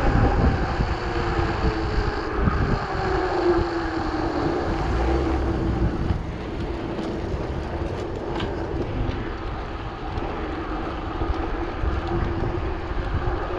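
Wind buffeting the microphone and road noise of a bicycle rolling along tarmac, with a steady hum that drops slightly in pitch in the first few seconds.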